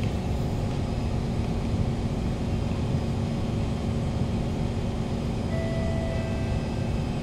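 Steady low rumble with a constant hum in a station concourse. A brief electronic beep sounds about five and a half seconds in.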